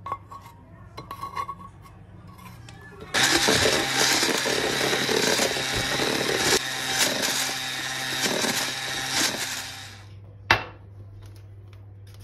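Electric hand mixer running in a bowl, beating melted chocolate into whisked eggs and sugar. It starts about three seconds in, runs steadily for about seven seconds and stops, followed by a single sharp click.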